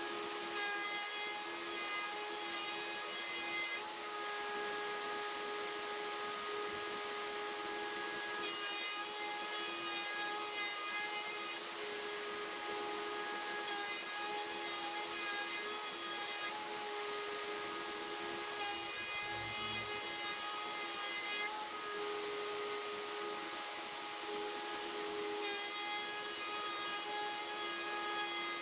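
A power tool running steadily, with a constant whine and a higher set of tones that comes and goes every few seconds.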